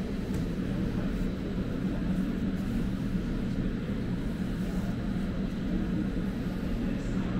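Berlin S-Bahn class 481 electric train standing at a platform with its doors open, giving off a steady low hum.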